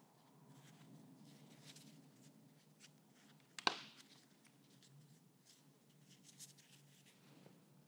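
Faint rustling and light taps of hands handling a wad of paper towel over a painting, with one sharp click about three and a half seconds in.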